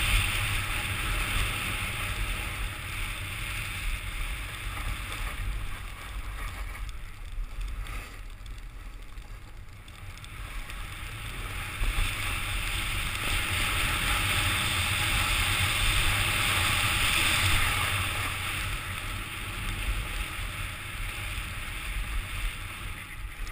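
Edges hissing and scraping on packed snow during a downhill run, with wind rumbling on the action-camera microphone. The scraping grows louder twice, at the start and again for several seconds in the second half, and eases in between.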